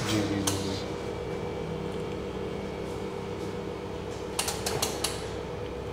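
Steady electrical hum of a running laser and bonding machine for LCD panel repair. There is one click about half a second in and a quick run of four or so clicks about four and a half seconds in, like its controls being handled.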